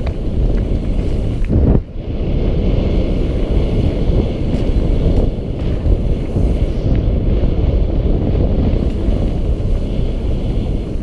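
Wind buffeting a helmet-mounted camera's microphone as a mountain bike rides fast down a dirt forest trail, mixed with the noise of the bike over the ground. The noise dips briefly a little under two seconds in.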